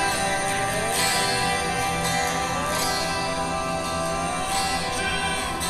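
Music with a guitar, one guitar line sliding up in pitch a few times over held notes.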